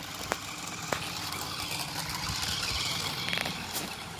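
Toy remote-control off-road car driving on a rough road: its small electric motor and tyres make a steady whirring hiss that swells in the middle and eases near the end. Two sharp clicks come about a third of a second and a second in.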